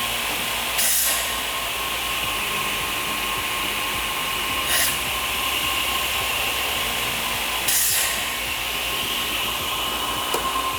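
Pistorius MN200 double miter saw running, its two saw motors giving a steady whine. Three short, louder bursts come about a second in, near the middle and at about eight seconds.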